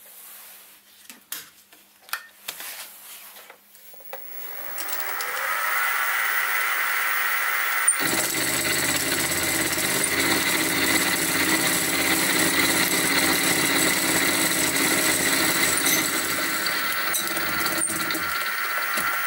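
Sieg SX2P mini-mill running with its end mill cutting metal: a steady motor whine mixed with cutting noise. A few sharp clicks come first, then the sound builds over a couple of seconds and steps louder about eight seconds in.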